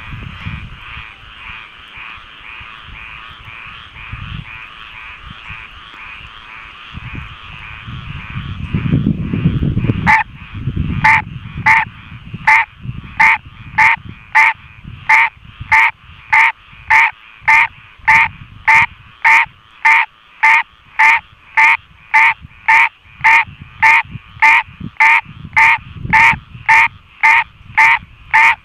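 A male American green tree frog giving its mating call: a short, loud call repeated about one and a half times a second, which starts about ten seconds in. Before that, and faintly behind it, a steady chorus of other frogs.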